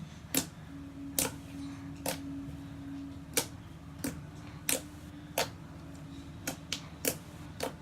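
Slime being poked and squeezed by hand, letting off sharp pops and clicks at irregular intervals, about a dozen in all.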